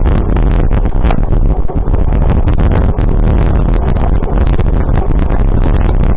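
Loud steady rumble of a moving vehicle, with wind buffeting the microphone.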